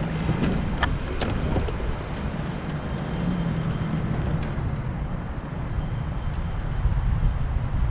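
Wind buffeting an outdoor camera microphone, a steady low rumble, with a few light clicks in the first second and a half.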